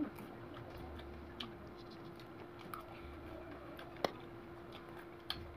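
Quiet eating sounds during a meal: a few small, sharp clicks and taps, the sharpest about four seconds in, over a faint steady hum.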